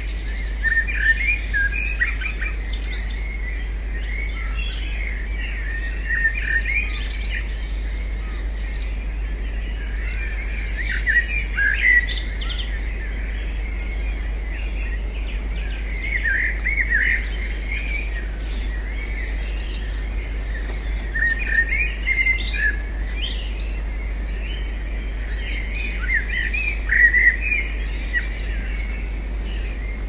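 Small songbirds chirping and twittering in short bursts that recur every five seconds or so, over a steady low hum.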